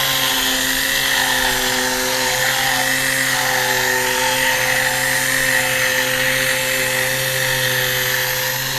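Small orbital sander running at a steady speed against a plastic headlight lens: a constant motor whine over a sanding hiss.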